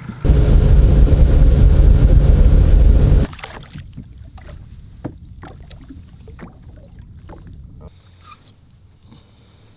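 Boat's outboard motor running at speed, loud with wind noise on the microphone, for about three seconds before it cuts off abruptly. After that come faint splashing and small clicks as a fish is played at the surface beside the boat.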